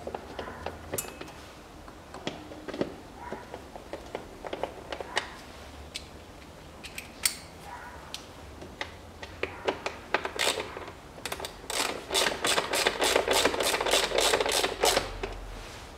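Torx T25 screwdriver driving the self-tapping screws into the plastic air filter housing cover: scattered clicks and taps of the tool against the plastic. Near the end comes a quick, even run of ratchet clicks, about five a second, as a screw is wound in.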